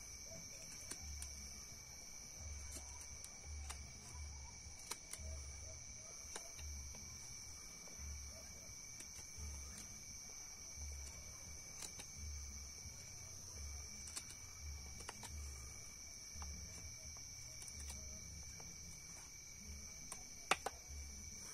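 Knife shaving a wooden stick by hand: soft scraping strokes and light clicks, with a sharper click near the end. Under it runs a steady high chirring of night insects.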